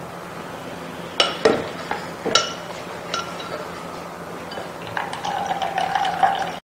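A stainless steel mesh sieve and spatula clinking against a glass bowl four times while juice is pressed through the sieve. Near the end, strained cucumber juice trickles from the lifted sieve into the bowl.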